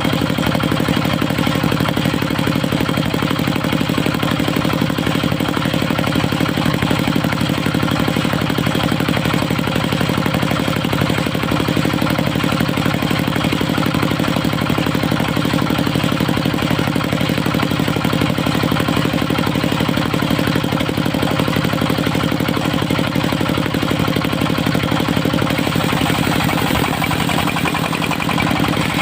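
Engine of a portable circular-saw sawmill running at a steady speed, with an even, unbroken tone.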